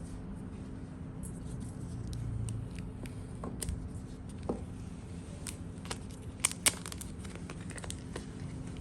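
Scattered light clicks and taps of a phone, its case and packaging being handled, the sharpest pair about six and a half seconds in, over a faint steady hum.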